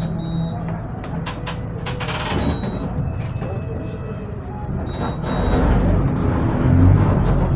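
Volksbus/MAN 17-230 OD city bus running, with a short burst of air hiss about two seconds in, then the engine growing louder from about five seconds in as it pulls.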